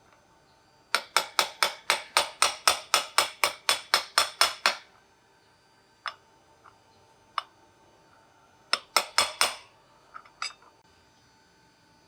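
Metal hammer taps on metal, a quick run of about four blows a second lasting nearly four seconds. A couple of single taps follow, then a second short run of about five blows and two last taps.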